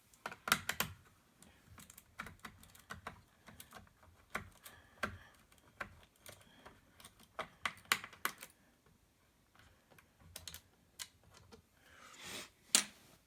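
Light, irregular clicks and taps of a small screwdriver and screws against the plastic case of an Asus laptop as its screws are taken out, with a quieter gap about two-thirds of the way through and one sharper click near the end.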